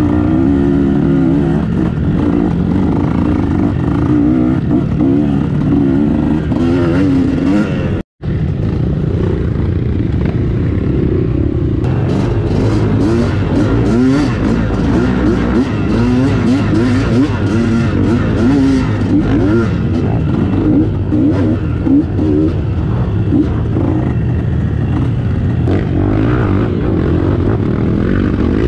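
KTM adventure motorcycle engine riding an off-road trail, its pitch repeatedly rising and falling as the throttle opens and closes. From about twelve seconds in, many short clicks and knocks ride over the engine. The sound cuts out completely for an instant about eight seconds in.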